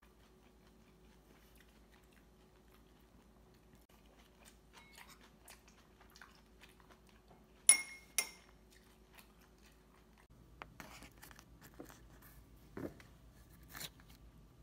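Faint scattered small clicks, with two sharp ringing clinks about half a second apart a little past the middle.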